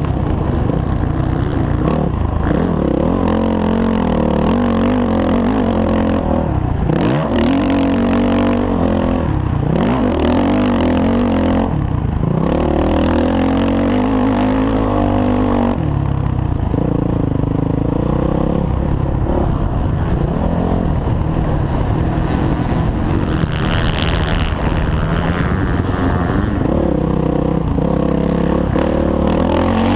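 Four-stroke motocross bike engine under hard riding, revving up and down through the gears with repeated throttle chops into the corners.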